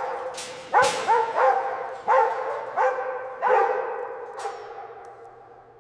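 A dog barking about six times, each bark trailing off in a long echo, and the sound fades away near the end.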